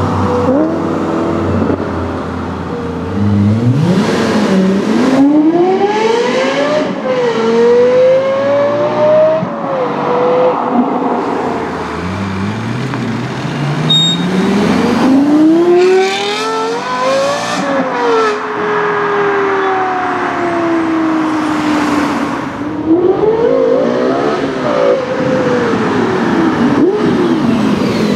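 Lexus LFA's 4.8-litre V10 at full throttle in several hard accelerations, its pitch climbing steeply through the revs and dropping back at each shift or lift-off. The first run echoes in a road tunnel.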